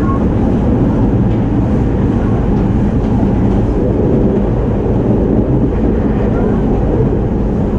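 Interior running noise of a JR East 209 series electric commuter train, heard aboard a motor car: a steady, loud rumble of wheels on rail and traction equipment.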